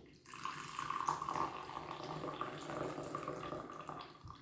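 Liquid pouring in a steady stream from a plastic thermos carafe into a glass mug. It starts about a quarter second in and stops just before the end.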